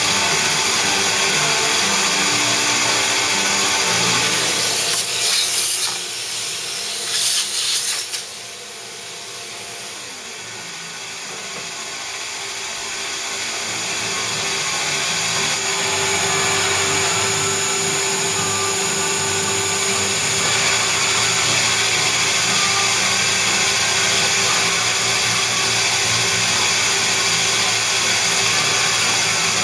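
Carbide four-flute end mill cutting dry into a cast-iron mill slide on a CNC-converted PM-30 milling machine, the spindle and cut running steadily together with a wet/dry shop vac pulling away the chips. About four seconds in, a louder hissing rush lasts a few seconds; the sound then drops suddenly and builds back up over the next several seconds.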